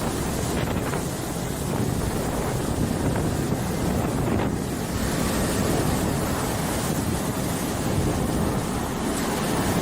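Strong storm wind blowing hard across the microphone, a steady loud roar with no letup.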